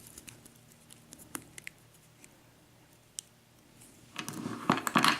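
Small metallic clicks of a six-pin padlock core being turned and handled, then from about four seconds in a dense, loud rattling clatter as the lock's small pins and springs spill out.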